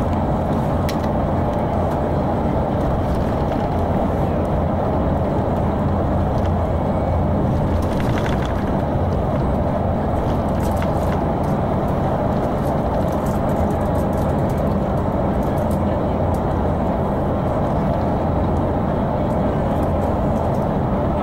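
Steady drone of a moving city bus heard from inside the cabin: engine hum and road noise at an even level, with a few faint rattles.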